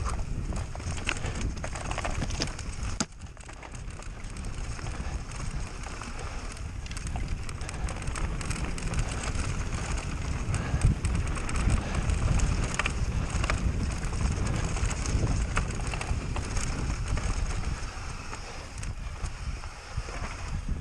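Enduro mountain bike ridden down a rough trail: tyres on dirt and stones with frequent rattles and knocks from the bike, and wind buffeting the microphone.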